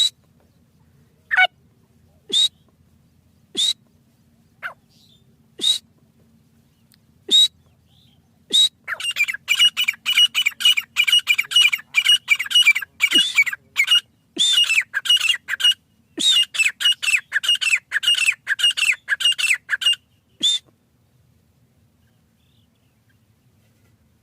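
Teetar (partridge) calling: single sharp calls every second or two, then a fast run of repeated calls, about four or five a second, from about nine seconds in to about twenty seconds, and one more call after it.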